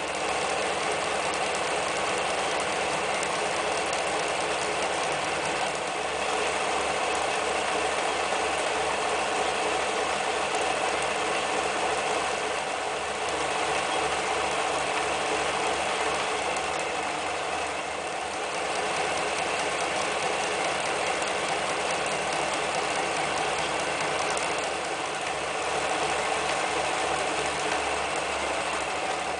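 Janome New Home 110 electric sewing machine running steadily at speed, its needle stitching rows of zigzag and decorative stitches with a fast, even mechanical clatter. It eases off slightly a few times.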